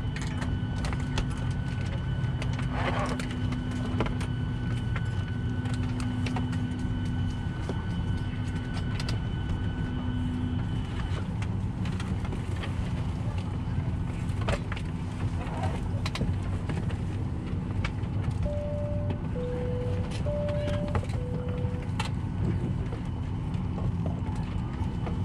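Cabin noise inside a Boeing 737-800 on the ground after landing: a steady low rumble with scattered clicks. Late on, a two-note tone sounds high-low, high-low.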